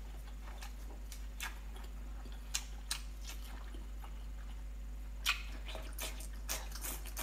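Close-miked wet mouth sounds of biting and chewing a sea cucumber: sporadic short smacks and squelchy clicks, a louder one about five seconds in.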